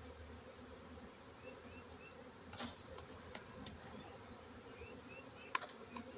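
Honeybee swarm buzzing steadily as its bees are brushed from woodpile bark into a hive box. A few sharp knocks come from the wood being handled, about halfway through and a louder one near the end.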